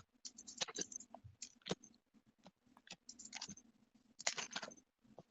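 A string of faint, scattered clicks and light taps, a few every second, with a small cluster about four seconds in: handling sounds from looking up a Bible passage.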